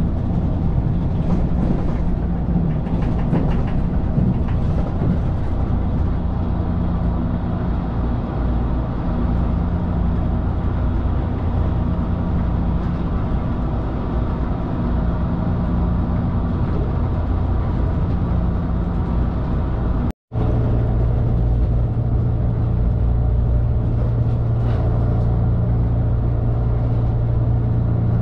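Steady running noise of a JR Kyushu 883 series electric train, heard inside the passenger cabin. About two-thirds of the way through, the sound cuts out for a moment, and after that a steady low hum is stronger.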